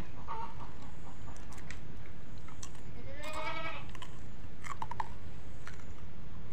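A farm animal bleats once, a quavering call about three seconds in, over a steady low background rumble, with a few short clicks around it.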